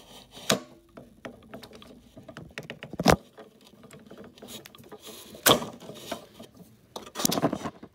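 Metal bars being worked off a power recliner's drive shaft: a string of light clicks and scrapes with a few sharper knocks and a longer rattle near the end, as the stuck pieces are pried loose.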